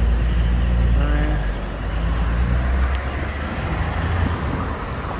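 Road traffic at a busy multi-lane junction: cars and a van passing close by, engines running and tyres on the road over a steady low rumble.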